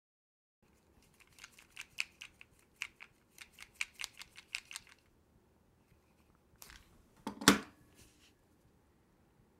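A revolver being handled, giving a run of about twenty small sharp metallic clicks over four seconds, then a couple of knocks and one heavy knock as the revolver is set down on the coffee table.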